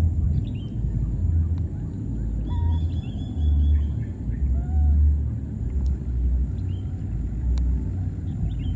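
Wind rumbling and buffeting on the microphone in uneven gusts, with faint bird chirps and a few short calls over it outdoors.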